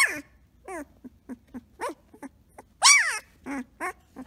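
Samoyed puppy whimpering and yipping in a quick string of short, high-pitched cries. The loudest, about three seconds in, is a longer cry that rises and then falls.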